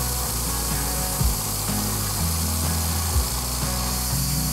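Logosol B1001 band sawmill cutting through a pine log: its engine running under load while the band blade saws, with a steady high hiss.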